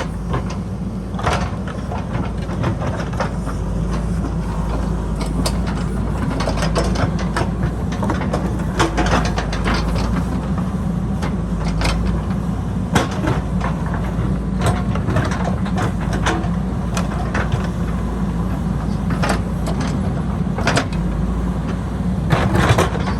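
JCB backhoe loader's diesel engine running steadily under load, with irregular clanks and knocks of the bucket against rock and dirt.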